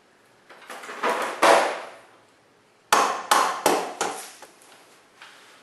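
Sharp knocks and taps of work on a motorcycle's front wheel and axle: a few around a second in, then a quick run of four or five strikes about three seconds in.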